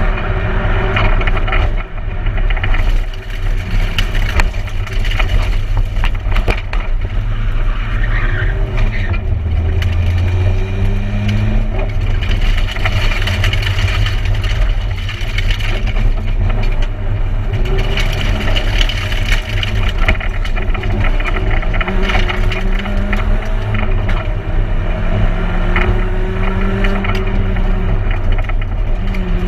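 Peugeot 106 1600 rally car's engine heard from inside the cabin at stage pace, its pitch rising and falling again and again as it is revved through the gears, over a constant rumble of tyre and road noise with frequent knocks and rattles from the shell.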